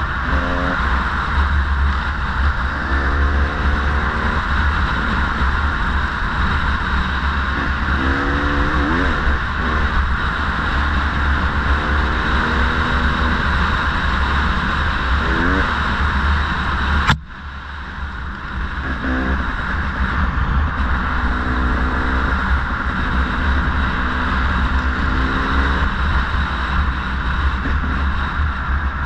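Off-road motorcycle engine revving up and down while riding a rough trail, its pitch climbing again and again through the gears, over a heavy rumble of wind on the microphone. About seventeen seconds in there is a sharp click and the sound drops away for a moment before coming back.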